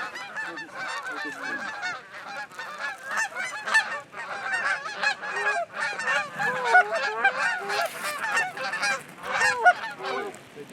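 Canada geese honking and clucking, many short calls overlapping at once in a dense, continuous chorus.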